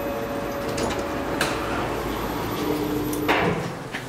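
Elevator doors sliding shut, with a knock a little after three seconds as they close; the station's steady rumble drops off once they are shut.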